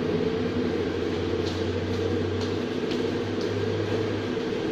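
Steady mechanical hum, with a few faint ticks.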